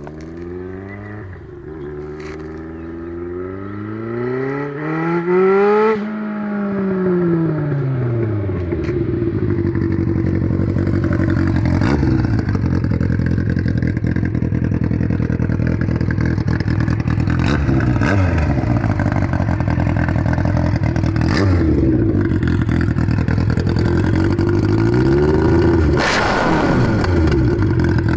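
Yamaha R1 sport bike's inline-four engine running with no exhaust fitted, loud and raw. Its pitch climbs over the first several seconds to a peak about six seconds in, then drops. It then runs on steadily with a few shorter rises and falls in pitch.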